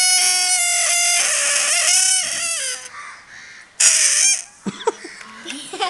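Air escaping through a rubber balloon's stretched neck, making a loud wavering squeal like a fart. It runs for almost three seconds, then comes back as a shorter burst about a second later.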